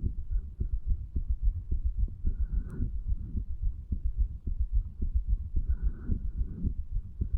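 Human heartbeat recorded at the chest over the tricuspid valve area: a steady run of low lub-dub thuds. There is a faint rushing noise twice, around two and a half and six seconds in, and one sharp click near the first of these.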